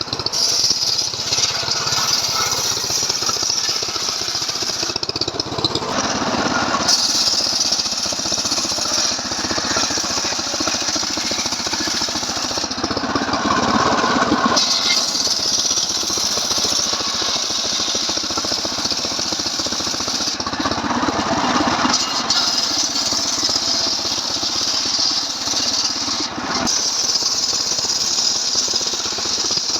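Stihl MS 381 two-stroke chainsaw running at high revs under load, ripping lengthwise through a log. Its note shifts every several seconds as the load on the chain changes.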